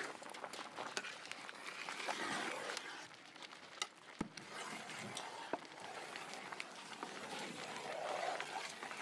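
Large metal pot of pomegranate juice boiling over a wood fire as it is reduced to pomegranate paste, stirred with a long wooden paddle: a steady bubbling hiss with scattered sharp pops and clicks.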